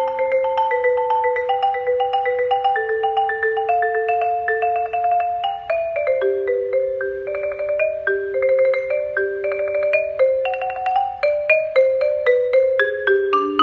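Marimba played with two mallets: a slow melody whose notes are held out by rapid rolls of alternating strokes, changing pitch every second or so.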